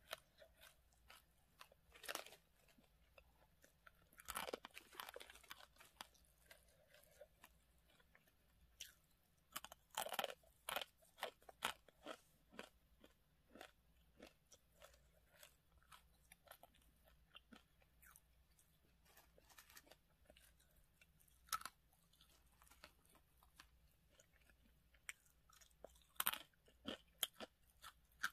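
A person chewing dry, uncooked instant ramen noodles close to the microphone: irregular clusters of crisp crunches, with quieter gaps between them.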